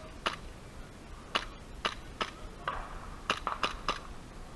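Airsoft guns firing: about eight sharp pops at irregular intervals, with a quick run of four shots about three and a half seconds in.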